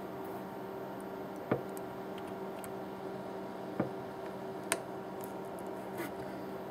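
A few sharp clicks and taps from a circuit board being handled and worked with a soldering iron while components are desoldered, three of them standing out about a second and a half, nearly four and nearly five seconds in. Under them is a steady low hum.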